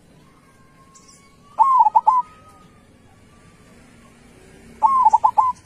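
Zebra dove (perkutut) cooing: two short phrases of quick, repeated coo notes, the first about one and a half seconds in and the second near the end.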